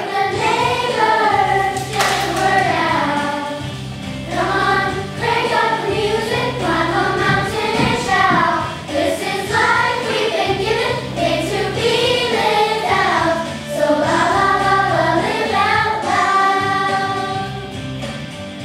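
Children's choir singing an upbeat worship song together over instrumental accompaniment with a steady bass line.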